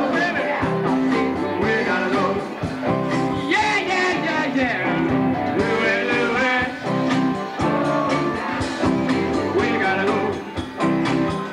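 A live rock and roll song: singers on microphones, backed by a band with guitar.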